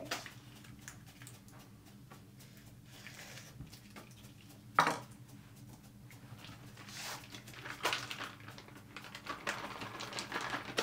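Kitchen handling noises: dishes and utensils clinking, with one sharp knock about five seconds in, then rustling and scraping near the end.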